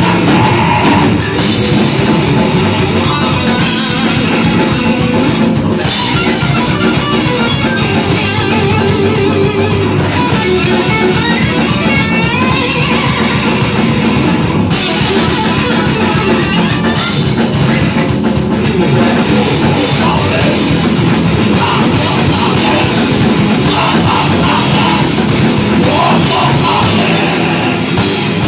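Thrash metal band playing live: distorted electric guitar, bass guitar and drum kit, loud and dense without a break.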